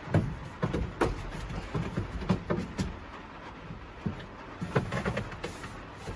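Irregular knocks and thumps, about a dozen, coming thick for the first three seconds and then thinning out.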